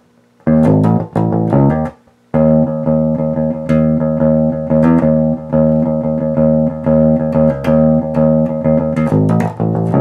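Warwick Rockbass Infinity electric bass played fingerstyle through an Ampeg cabinet and an SWR Workingman's 4004 head, with a clean, undistorted tone. It plays a riff of plucked notes with hammer-ons and a muted note: two short phrases in the first two seconds, then an unbroken run of repeated notes that stops near the end.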